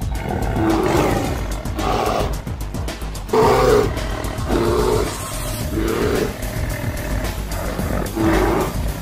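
Background music laid over repeated short roars and growls from animals fighting, the loudest about three and a half seconds in.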